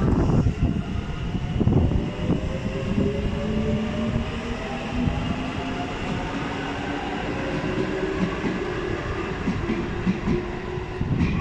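Tobu 20400 series electric train pulling out and accelerating away, its traction motors whining in several tones that slowly rise in pitch, over a steady rumble with the wheels knocking on the rail joints.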